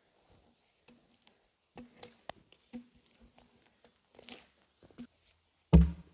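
Scattered light knocks and clicks at irregular intervals, with one heavy, low thud near the end.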